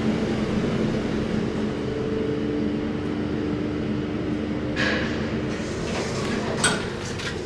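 Lift car running with a steady hum, then coming to a stop as its glass-panelled sliding doors open, with clicks and a clunk from the door mechanism near the end.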